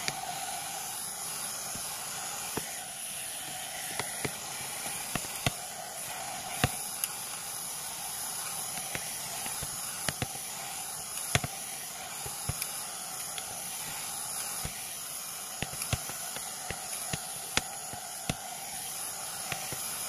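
3-in-1 hot air brush hair dryer running on its medium setting, a steady hiss of blown air, with scattered sharp clicks now and then.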